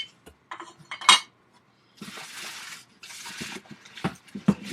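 Metal chainsaw parts clinking and knocking as they are handled and lifted out of a shipping box, the loudest knock about a second in. Two stretches of rustling come in the middle.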